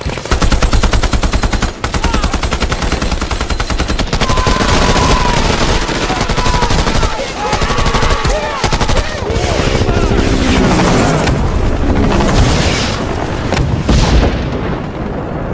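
Dense, continuous automatic gunfire: rifles and machine guns firing rapidly and overlapping, with no break.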